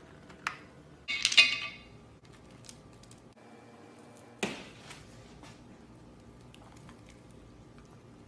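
Handling sounds of slime-making materials and containers: scattered sharp clicks and taps, with a louder short crackling burst about a second in and another, briefer one about four and a half seconds in.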